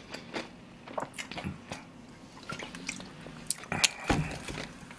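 Close-miked mouth sounds of drinking cola from a plastic bottle and chewing, with scattered small clicks. There is a knock about four seconds in as the bottle is set down.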